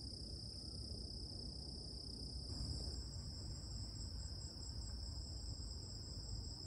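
Insects trilling: a steady high-pitched trill, joined about three seconds in by a second, higher trill that pulses. A faint low rumble lies underneath.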